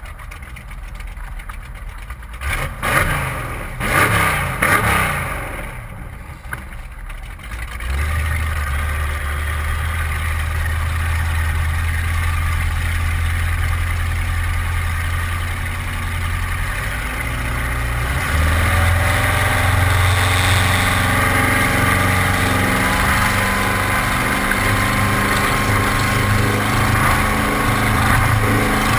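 1981 Cigarette 27 Squadron's 540 cubic-inch big-block V8 running, with a few quick throttle blips in the first five seconds, then a steady drone from about eight seconds. About eighteen seconds in it gets louder and its pitch slowly rises as the boat speeds up, over water and wind rushing past the hull.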